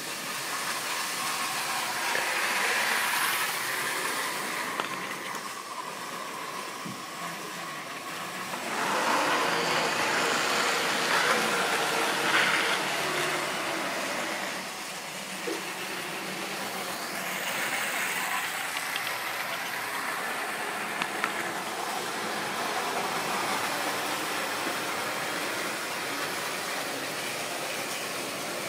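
OO gauge model train running round the layout: the rumble and whir of a small motor and metal wheels on sectional track, getting louder twice as it passes close by, with a few sharp clicks.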